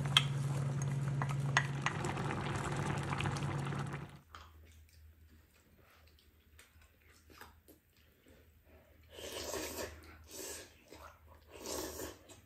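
Chicken stew bubbling at the boil in a pan over a steady low hum, with a couple of sharp clinks as diced carrots are tipped in; this cuts off about four seconds in. Then soup being slurped from spoons at the table, in short bursts, loudest about nine seconds in and near the end.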